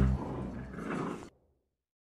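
Labrador puppies growling as they wrestle, over background music with a bass beat; all sound cuts off abruptly just over a second in, leaving dead silence.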